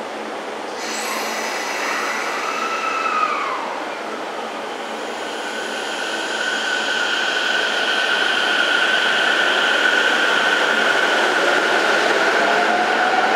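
JR East E231-series electric train pulling away from the platform: a hiss about a second in, then the VVVF inverter and traction motors whining at a steady pitch, growing louder as the train gathers speed, with a lower tone starting to rise near the end.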